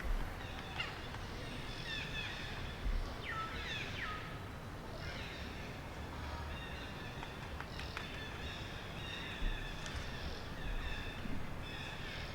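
Forest ambience with birds calling: scattered short chirps and whistles, a few sliding down in pitch about three to four seconds in, over a faint steady background hush.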